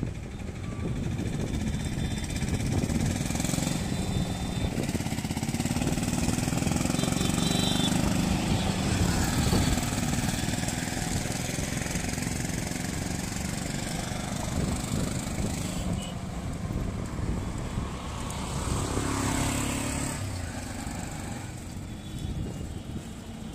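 Road traffic: motor vehicles passing along a street, the sound swelling and fading, with one going by near the end whose pitch falls as it passes.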